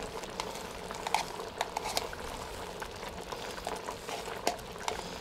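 Stroganoff sauce bubbling in a cast-iron Dutch oven, a steady simmer dotted with small scattered pops and clicks.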